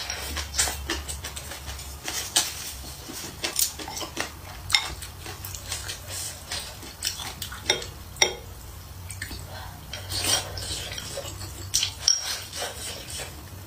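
Wooden chopsticks clicking and scraping against ceramic bowls, irregular taps a few times a second, the sharpest about 8 and 12 seconds in, as rice is shovelled from a small bowl and food picked from a large one, with eating noises.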